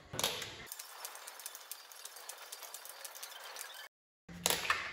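Hand tools working on a disassembled engine: a few sharp metallic clicks, then a run of rapid light ticking. The sound drops out completely for a moment about four seconds in, then more sharp clicks follow.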